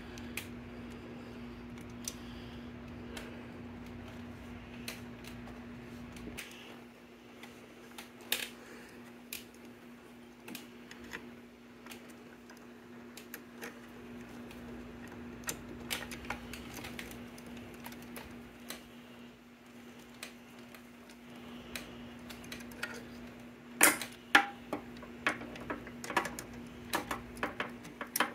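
Socket wrench on an extension tightening the carburettor mounting nuts on a Vespa P200E engine: scattered metal clicks and taps, with quick runs of ratchet clicking about 24 seconds in and near the end. A steady low hum runs underneath.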